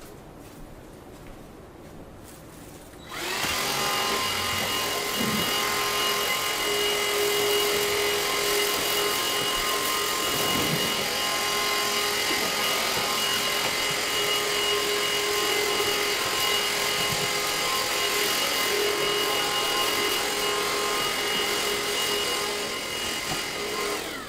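Craftsman V20 cordless stick vacuum switched on about three seconds in, its motor running with a steady whine over the hiss of the airflow, then shutting off just before the end.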